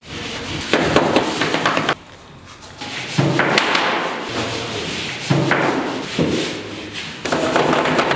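Thuds and taps of food being worked and handled on a work table, coming in bursts of about a second with short quieter gaps between them.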